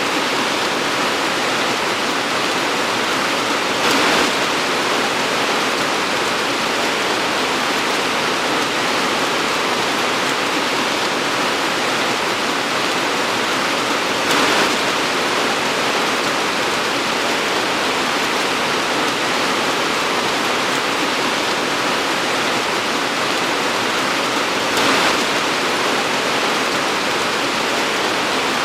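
Heavy torrential rain falling in a dense, steady hiss, with three brief louder surges about ten seconds apart.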